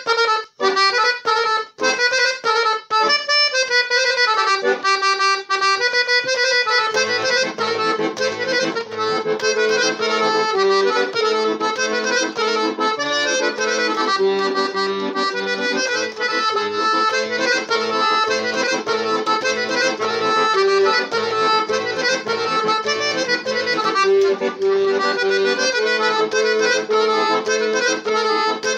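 Piano accordion playing a song: a quick, choppy run of short, detached notes at first, then from about seven seconds in a steady melody on the right-hand keys over the left hand's regular alternating bass-and-chord accompaniment.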